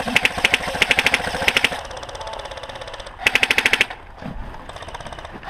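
Airsoft guns firing on full auto: a stream of rapid shots lasting nearly two seconds, then a shorter burst about three seconds in.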